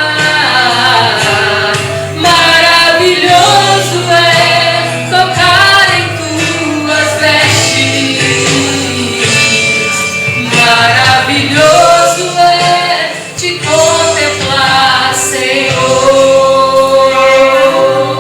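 Gospel song: singing over instrumental accompaniment with sustained bass notes.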